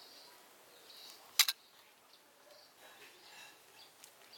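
Pruning shears snipping once through a woody jujube stem, a sharp double click about a second and a half in: the approach-graft union being cut to free the grafted branch.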